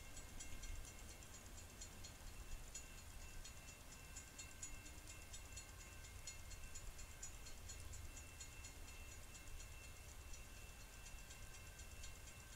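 Railroad grade-crossing warning bell ringing faintly with a rapid, even ticking strike while the gates lower, warning that a train is approaching.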